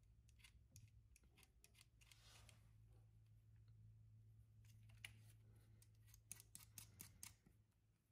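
Faint metallic clicks and ticks from a hand-operated rivet-nut (riv-nut) setting tool being worked to set a threaded insert in a car door's sheet-metal speaker mount, with a quick cluster of clicks about six to seven seconds in. A low steady hum runs underneath.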